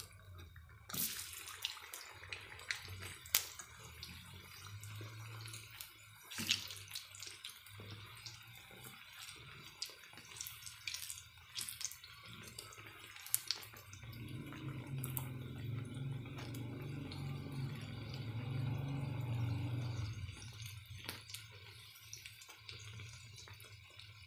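Besan-battered stuffed green chillies sizzling in hot oil in a black iron pan, with scattered sharp pops and clicks. A low hum swells for several seconds past the middle.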